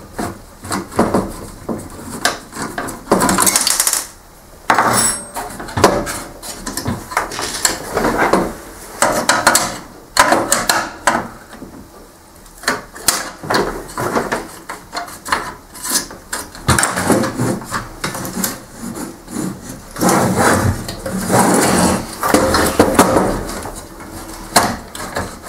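The plastic chassis and parts of an HP LaserJet 6P being pried at with a screwdriver and pulled apart by hand: an irregular run of clicks, knocks and rattles of hard plastic and loose metal parts, with short scraping rubs.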